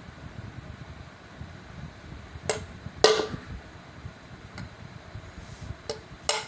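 Small hard tools and parts handled during a repair: a handful of sharp clicks and knocks, the loudest about three seconds in with a brief ring. A steady low hum runs underneath.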